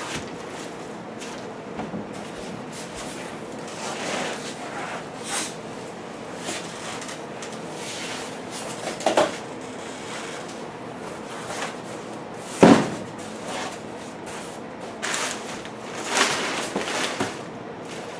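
Scattered knocks, scrapes and rustles of unpacking a boxed refrigerator and freezer: cardboard and packing being handled, with one sharp knock about twelve and a half seconds in.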